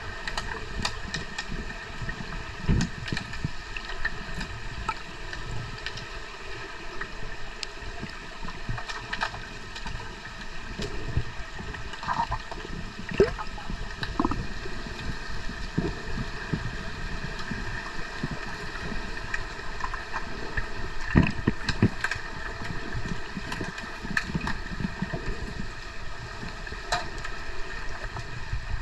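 Pool ambience heard underwater: a steady muffled watery rush with a faint hum of several steady tones, broken by scattered sharp clicks and a few louder knocks.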